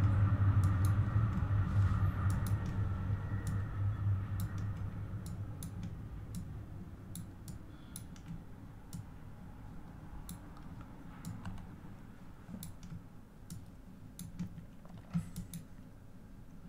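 Scattered, irregular clicks of a computer mouse and keyboard over a low hum that fades during the first several seconds.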